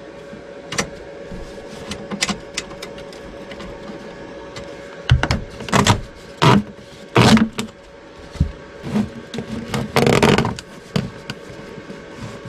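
Handling noises of ducting work: clicks, knocks and several louder scraping, rustling sounds, the loudest around the middle and about two-thirds of the way in, over a steady hum.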